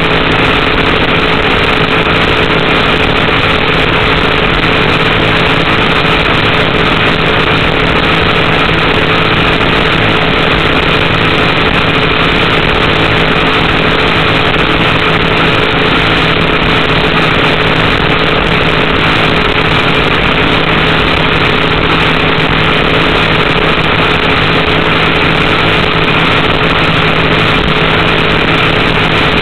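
Race boat's small Chevrolet engine running loud and steady at an unchanging speed, under a constant rush of wind and water. The boat is held back below full pace by an oil pressure problem.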